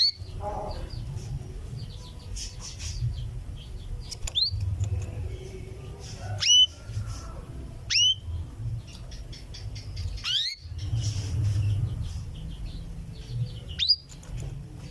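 Female canary's 'cuwit' contact calls to a male: short, sharp whistled notes that sweep quickly upward, about five of them spaced a second or more apart, over a low background rumble.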